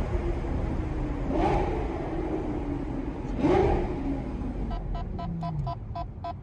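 Lamborghini Gallardo Superleggera V10 with an F1-style exhaust running at low revs, blipped up briefly twice. About five seconds in, the engine sound drops away and a quick run of electronic beeps, about five a second, comes in.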